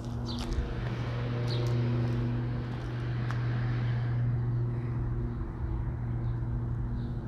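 A car passing along a street, its noise swelling and fading over a few seconds, over a steady low hum. A couple of short bird chirps come in the first two seconds.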